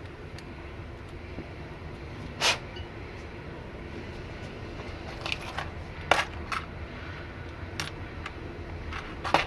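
Small parts and tools being handled on a workbench during an airsoft gearbox install: a scattering of short, sharp clicks and taps, the loudest about two and a half seconds in and a quick cluster around six seconds, over a steady low hum.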